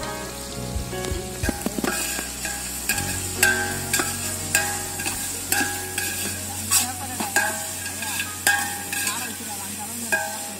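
Onions, green chillies and whole spices sizzling in hot oil in an aluminium pot, stirred with a steel slotted spoon. The spoon scrapes and knocks against the pot every half second to a second, and the pot rings briefly after each knock.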